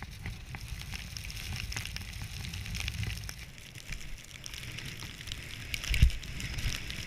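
Snowboard riding through deep powder, heard from a pole-mounted action camera: a steady rumble of wind on the microphone under a crackling hiss of snow spray, with a loud thump near the end.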